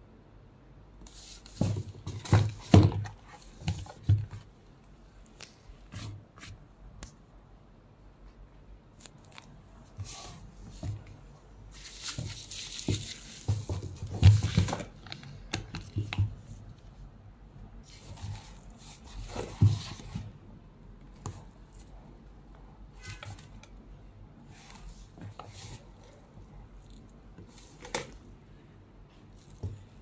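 Handling noise from a quilted leather flap bag and its box and wrapping being turned and opened by hand: scattered rustles, light clicks and a few soft thumps, with a longer rustle about twelve seconds in.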